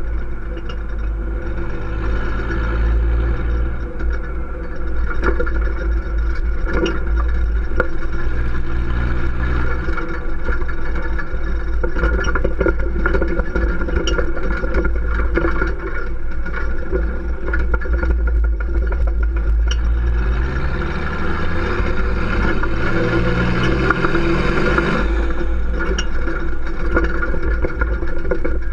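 Exhaust of a 1992 Toyota Land Cruiser HDJ80's 4.2-litre turbo-diesel straight-six, running through a 2.25-inch exhaust while the truck drives along. The engine note climbs briefly about a third of the way in. It climbs again over several seconds past two-thirds of the way as the truck accelerates, then falls off abruptly.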